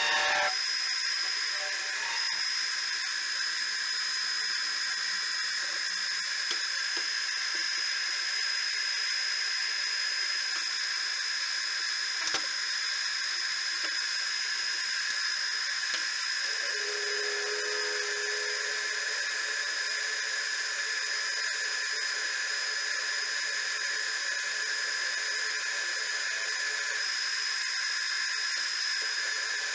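Small metal lathe running with a steady high whine while turning a conical steel washer. A single sharp click about twelve seconds in.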